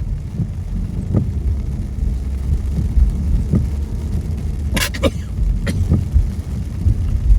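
Low, steady road and engine rumble inside a moving car, with a few scattered sharp taps, the loudest about five seconds in.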